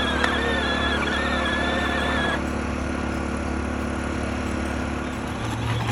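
Electric motor of a Peg Perego John Deere Gator ride-on toy running steadily, with a steady low hum and a wavering higher whine that stops about two and a half seconds in.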